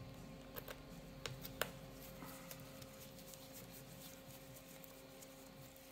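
Faint clicks and light scratchy ticks of a precision screwdriver tightening the small screws of a laptop's copper heat shield over its SSD; the sharpest clicks come in the first two seconds, then lighter ticking.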